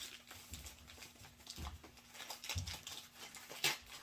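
Packaging and tobacco tins being handled: faint rustling with scattered small clicks and taps, and one sharper click about three and a half seconds in.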